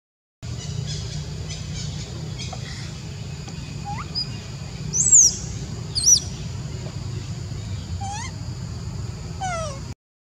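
Birds calling in short, high, sweeping chirps over a steady low rumble. Two loud arching chirps come about five and six seconds in, and a quick run of falling notes near the end.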